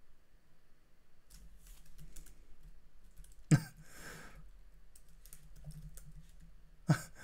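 Computer keyboard typing: scattered keystrokes, with a sharper, louder click about three and a half seconds in and another near the end.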